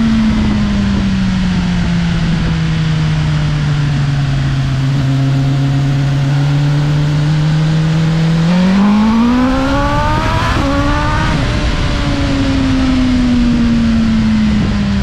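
BMW S1000RR's inline-four engine coasting with its note slowly dropping, then rising sharply for a few seconds as the throttle is opened about eight seconds in, then dropping away again. Wind rushes over the low-mounted microphone throughout.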